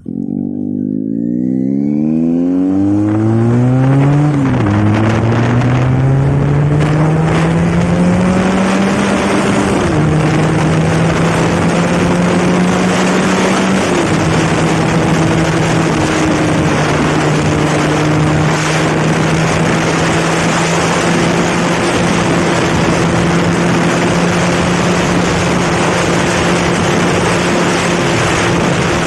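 Benelli TNT 300's parallel-twin engine through a newly fitted aftermarket exhaust, accelerating hard. The pitch climbs and drops at three upshifts, then holds at a steady cruise, over a constant rush of noise.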